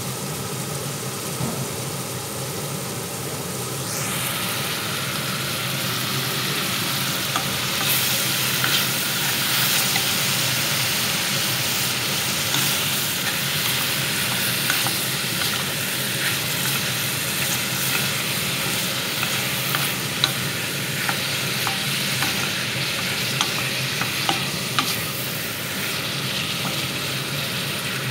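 Sliced cucumber, carrot and mushroom sizzling as they stir-fry in a nonstick pot, with a wooden spatula scraping and tapping against the pan as they are turned. The sizzle grows louder about four seconds in, and the spatula taps come often through the second half.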